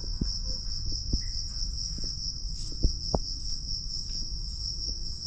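Crickets chirping in one steady, high, continuous trill, with a few soft knocks and a low rumble underneath.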